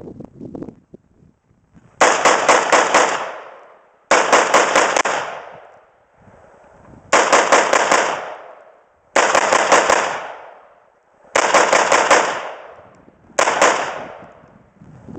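AR-15 rifle fired in six rapid strings of about four or five shots each, every string followed by a long, fading echo.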